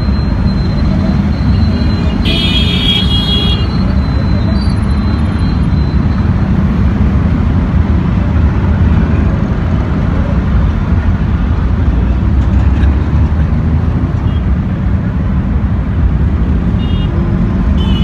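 Dense road traffic at a busy junction: a steady rumble of car, auto-rickshaw and motorcycle engines and tyres. A vehicle horn honks for about a second and a half, starting some two seconds in, and there are brief fainter honks near the end.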